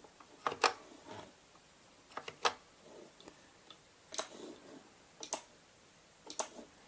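Macintosh Plus mouse button clicking, a handful of short sharp clicks spread about a second apart, several coming in quick pairs.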